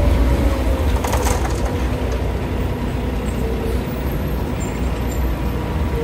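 Heavy road-construction machinery and trucks running with a steady low rumble. A short hiss comes about a second in.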